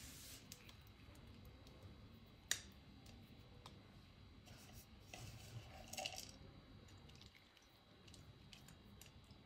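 Near silence with faint handling sounds as raisins and crushed nuts are dropped by hand onto custard. There is one sharp tick about two and a half seconds in and soft rustling around six seconds.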